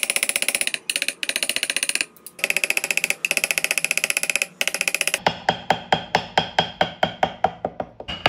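Background music built on wooden, block-like percussion: a fast, rattling clicking pattern that changes about five seconds in to a steady beat of about three struck, ringing notes a second.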